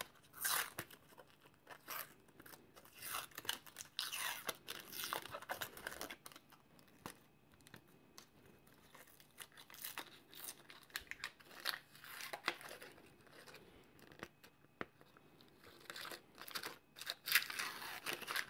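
Protective masking being peeled by hand off laser-cut acrylic: irregular bursts of tearing and crinkling.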